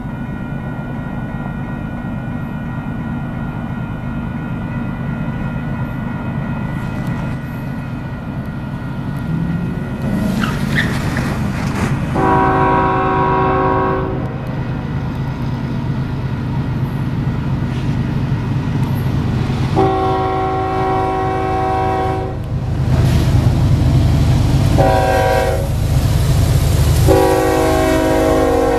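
Union Pacific diesel locomotives leading a double-stack container train sound a multi-note air horn in the grade-crossing pattern, long, long, short, long, starting about 12 seconds in. Under the horn, the locomotives' engines and the train rumble more loudly as they come up and pass close by.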